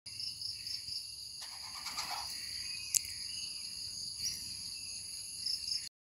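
A steady, high-pitched insect chorus drones on several pitches at once. A single sharp click comes about three seconds in and a short rising chirp a second later. The sound cuts off suddenly just before the end.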